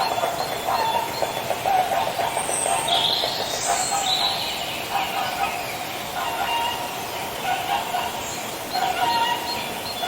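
Several swans calling together, short honking calls overlapping one another throughout, with a higher, brighter call standing out briefly a few seconds in.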